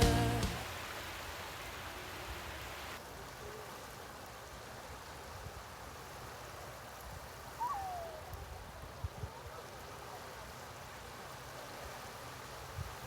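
Music fading out, then a steady rushing noise like running water, with a short falling call about eight seconds in and a few soft knocks near the end.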